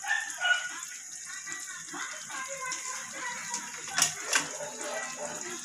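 A pot of kare kare stew bubbling on a simmer, with soft irregular pops a few times a second. Two sharp clicks come about four seconds in.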